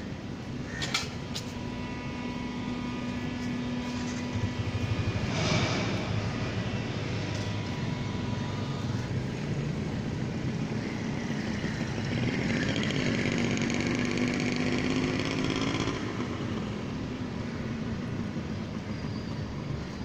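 Road traffic: motor vehicle engines running and passing by, loudest for a few seconds about twelve seconds in.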